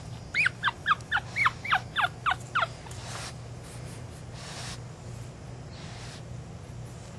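Pug puppy whimpering: a quick run of about ten short, high cries, each falling in pitch, over a little more than two seconds, followed by a few faint rustles.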